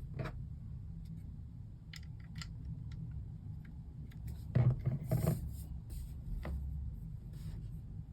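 Plastic LEGO bricks being handled and pressed into place: scattered small clicks and rubbing, with a louder cluster of clicks about halfway through, over a low steady hum.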